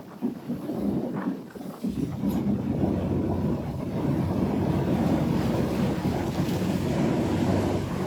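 Wind rumbling on the microphone aboard a fishing boat, with the boat's engine running steadily underneath.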